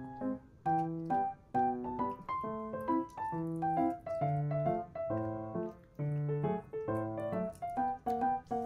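Background music: a keyboard tune with a piano-like sound, played in a steady run of short notes.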